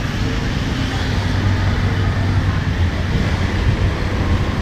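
Steady heavy rain hissing over the low rumble of street traffic.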